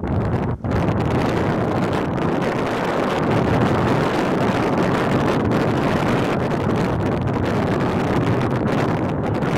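Steady loud rush of wind buffeting the microphone, with one brief drop about half a second in.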